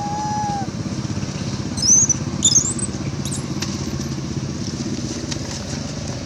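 Two short, high-pitched squeals from a young monkey about two seconds in, over a steady low rumble like a motor running.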